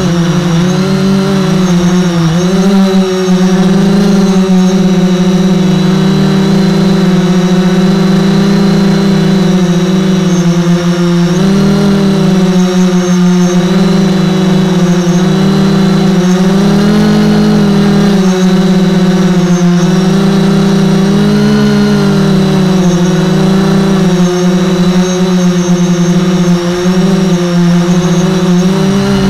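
Multicopter drone's electric motors and propellers humming steadily while it hovers, the pitch wavering slightly up and down as it holds position.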